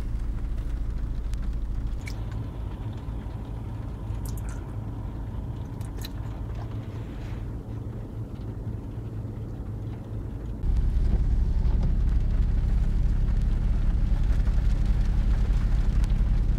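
Low, steady rumble of a car cabin while driving, with a few faint clicks. The rumble gets suddenly louder about two-thirds of the way through.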